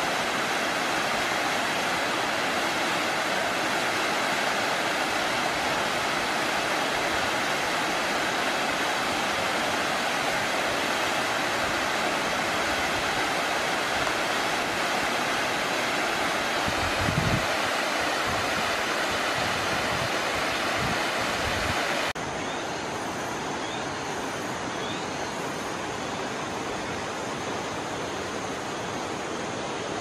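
Waterfall rushing, a steady full roar of falling water with a few low thumps in the middle. About two-thirds of the way through it cuts to a quieter, steady rush.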